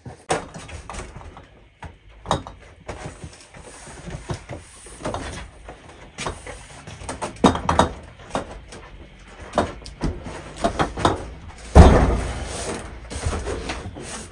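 A tall cardboard box holding a Biryusa refrigerator being carried in and handled, with scuffs, knocks and footsteps. One heavy thump a little before the end is the loudest sound, as the box comes down onto the floor.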